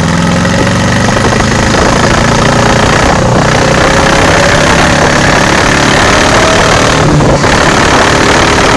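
Chevrolet Opala four-cylinder engine fitted in a forklift, running loud and steady, with a thin steady whine over the engine note.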